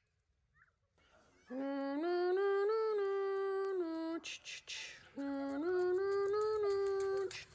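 A voice humming two long held phrases, each stepping up in pitch and then holding a steady note, like a hummed race tune. Between the two phrases there is a brief patch of splashing as feet run through a shallow rain puddle.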